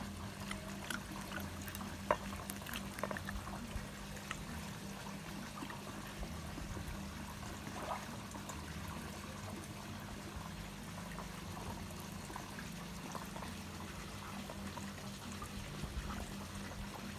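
Water pouring and trickling steadily over a constant low hum, with a few soft clicks from fingers working rice and fried fish on a china plate.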